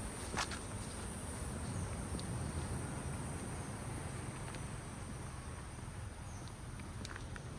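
Steady high-pitched drone of insects, crickets or cicadas, over a low background rumble, with a few footstep clicks about half a second in and near the end.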